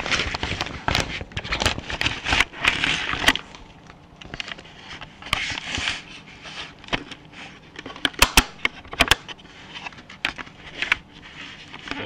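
Handling noise from a camera being moved about: irregular rustling and scraping with many sharp clicks and knocks, busiest in the first few seconds and with a cluster of loud clicks about eight seconds in.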